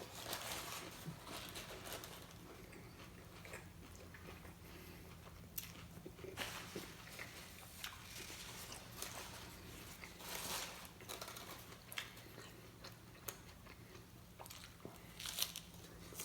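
A person eating a crunchy hard-shell taco: bites and chewing with crisp crunching, over a steady low hum.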